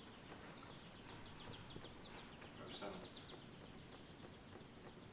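Toro EVOLUTION irrigation controller beeping on each button press while the time is being set: a steady run of short, high beeps, about two to three a second, with one sharp click about three seconds in.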